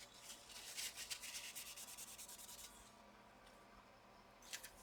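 Quick, faint rubbing strokes of a wipe scrubbing old, very dry thermal paste off a laptop's heatsink cooler, for about two and a half seconds, then it stops; a brief scrape near the end.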